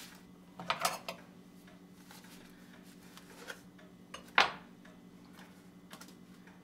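Disposable aluminium foil baking pan crinkling and clanking as it is handled while pie dough is pressed into it: a short cluster of crackles about a second in and one sharp, loudest crackle a little past four seconds, over a steady low hum.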